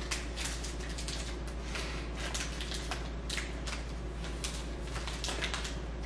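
Chocolate-bar wrapper crinkling as it is twisted and picked at, hard to open, in many short irregular crackles over a steady low hum.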